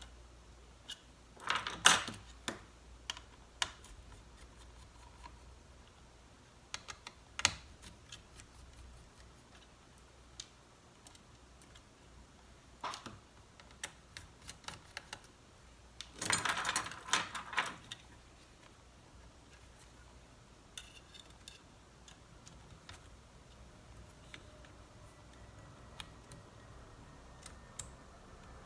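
Small hard objects clicking and clattering as tools and laptop parts are handled on a workbench: scattered single clicks, with a brief burst of rapid clatter about two seconds in and another around the middle.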